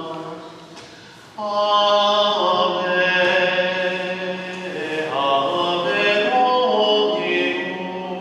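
Slow sung church chant: a voice holding long notes that step up and down in pitch, over a steady low note. One phrase fades just after the start and the next begins about a second and a half in.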